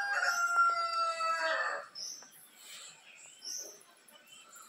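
A rooster crowing, one long held call that ends about two seconds in, followed by small birds chirping faintly.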